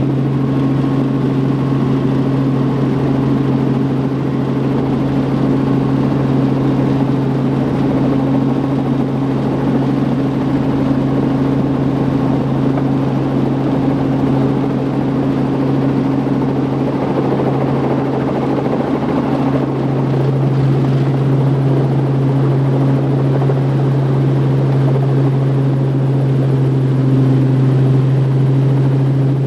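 Helicopter rotor and engine noise heard from inside the cabin during a low hover near the ground: a steady hum with a strong low drone, growing slightly louder about two-thirds of the way through.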